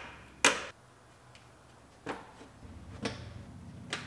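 Plastic push-pin fasteners snapping into an underbody hush panel as they are pressed home by hand: a sharp click about half a second in, then three quieter clicks roughly a second apart.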